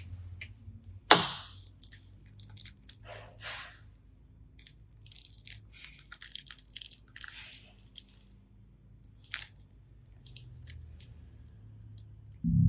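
Glitter slime being squished and stretched by hand: scattered sticky crackles and small wet pops, with a sharper click about a second in and a few short swishes. Music comes in near the end.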